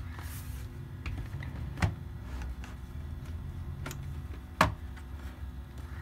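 Sharp plastic clicks as the bottom cover of an Acer Aspire 7 laptop is pried off, its clips snapping loose: about three clicks, the loudest a little past halfway, over a steady low hum.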